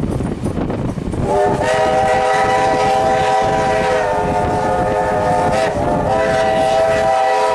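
Steam locomotive whistle sounding several tones at once in a long blast, then a second shorter blast after a brief break, over the running rumble of the moving train.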